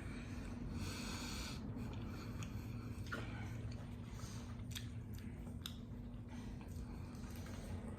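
Close-up chewing and eating of McDonald's burgers and fries, with a few sharp clicks. A steady low hum runs underneath.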